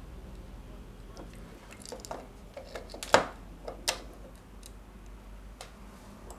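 Small metal screws and nuts clicking and ticking as they are handled and fitted into a machine part by hand. The clicks are scattered and irregular; the sharpest comes about three seconds in, with another just before four seconds.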